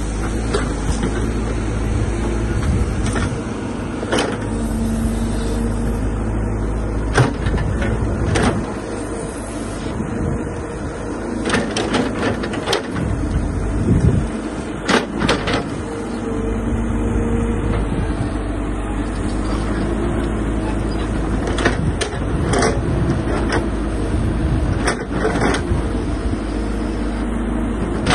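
Caterpillar hydraulic excavator's diesel engine running steadily under load as the bucket pushes through brush. Many sharp cracks and snaps, scattered throughout, as branches and brush break.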